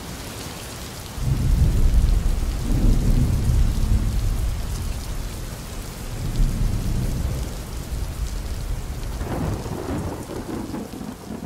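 Steady rain with rolling thunder. A long, low rumble starts about a second in and slowly fades, and a second, lighter rumble comes near the end.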